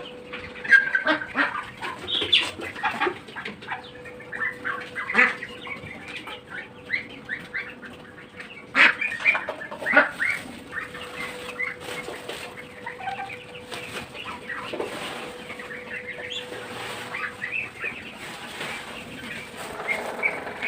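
A flock of domestic chickens clucking and peeping, with many short calls overlapping, broken by a few sharp knocks about nine and ten seconds in.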